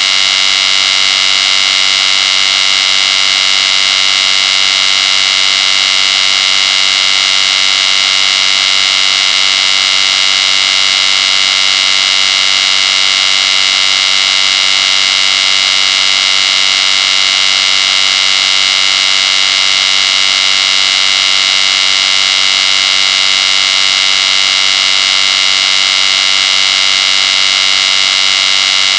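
Electric hair clippers running steadily, a continuous high-pitched buzz that does not change.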